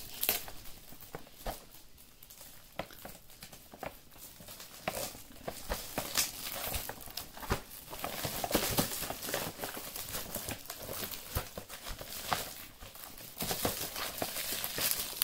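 Metallic foil gift wrap crinkling and tearing as small hands pull it off a box, in irregular crackles that get busier after about five seconds.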